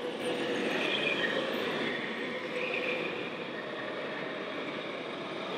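Scale RC timber truck's sound module playing a steady diesel engine sound as the truck drives slowly, over a constant background hum.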